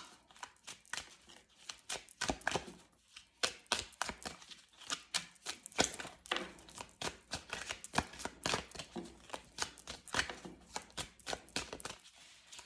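Tarot cards being shuffled by hand: a quick, irregular run of soft snaps and flicks.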